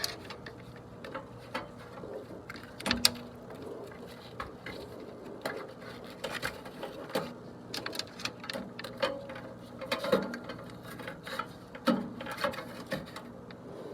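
Irregular metallic clicks, taps and rattles of hand tools and parts being handled while a new run capacitor and hard-start kit go into an air-conditioner condenser, over a faint steady hum.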